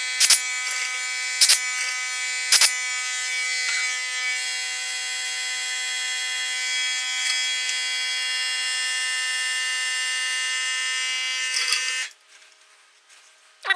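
Electric drill motor running at a steady speed with an even whine, with a few sharp clicks in the first few seconds. It cuts off abruptly near the end.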